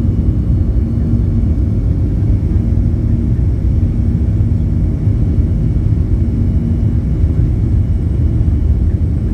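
Cabin noise of a jet airliner climbing just after takeoff: the turbofan engines at climb power give a loud, steady low rumble, with a faint steady hum for most of it.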